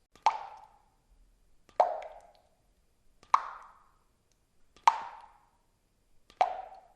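Water drops falling one at a time into water, five plinks about a second and a half apart, each with a short ring that dies away quickly.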